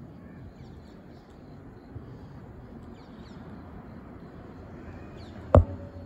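Steady outdoor background hum with faint, brief, high bird chirps now and then. A single sharp knock near the end is the loudest sound.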